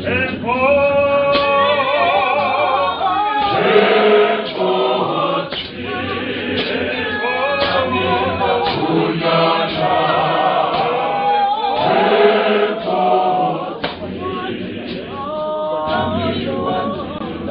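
Church choir singing a hymn in several voices, with long held notes that waver, and sharp beats here and there through the singing.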